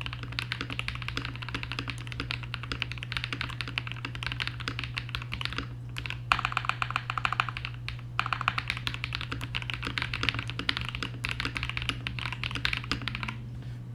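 Normal-speed typing on a KBD67 Lite mechanical keyboard with lubed and filmed KTT Rose linear switches: a dense, fast run of keystrokes. The typing breaks off briefly twice in the middle and stops shortly before the end, over a steady low hum.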